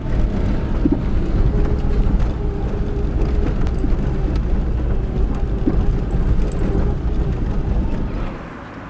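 Car driving along, a steady low rumble of engine and road noise, dropping away sharply near the end.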